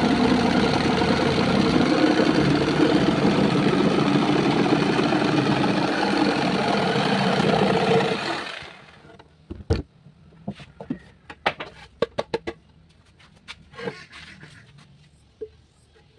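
Corded electric jigsaw cutting a curve through a wooden board, a steady buzzing cut. The saw stops about eight seconds in, and scattered knocks and clicks follow as the wood and tool are handled.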